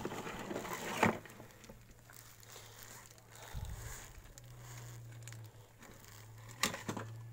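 Plastic packaging crinkling and plastic parts knocking as hands rummage through the contents of a plastic tank, with sharp clicks about a second in and again near the end.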